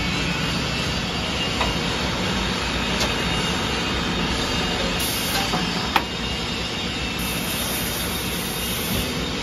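Solder wire extruder running: a steady mechanical whir and hum, with a few light clicks and one sharp knock about six seconds in.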